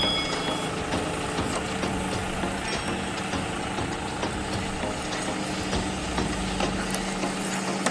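Diesel engine of a backhoe loader running steadily, with a deeper rumble joining about six seconds in.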